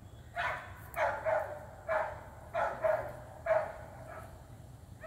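A dog barking in a quick series, about two barks a second, falling quiet a little past halfway.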